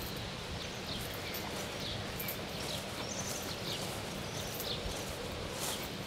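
Birds singing short, high, down-slurred chirps about once a second over steady outdoor background noise, with soft footsteps of someone walking through grass.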